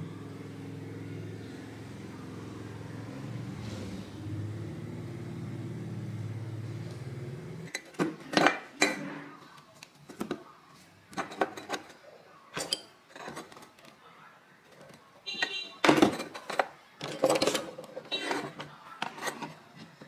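Portable gas stove burner running with a steady low hum that stops about seven and a half seconds in. Then a series of sharp knocks and clinks of hard objects handled and set down on a tabletop.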